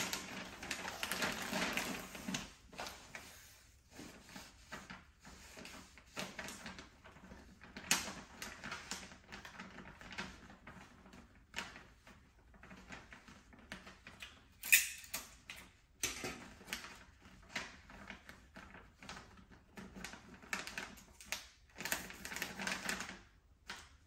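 Close-up handling of gift wrapping paper: crinkling and rustling in short, irregular bursts, with light taps and clicks and one sharp snap about halfway through.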